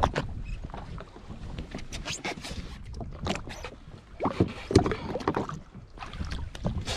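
Irregular splashes and knocks of water and handling around a jet ski sitting on the sea, louder about four and a half seconds in.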